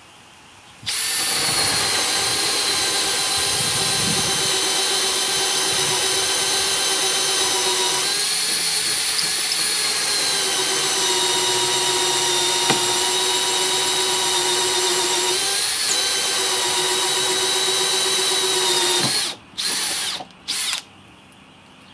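Makita XPH07 cordless drill spinning a bi-metal hole saw through hardwood: a steady motor whine under load that shifts pitch slightly a couple of times. Near the end it stops, then gives two short bursts as the cut finishes.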